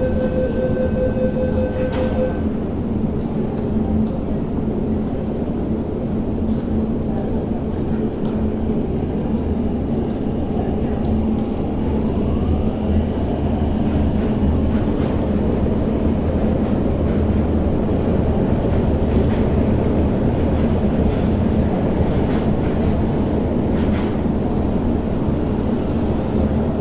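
A tone sounds until about two seconds in and ends with a click, which fits a door-closing warning followed by the doors shutting. Then an MTR Kwun Tong Line train pulls out of the platform: a steady rumble of wheels and traction motors, with a rising motor whine as it accelerates.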